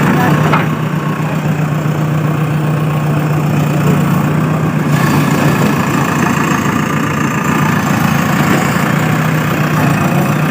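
Heavy diesel machine engine idling steadily.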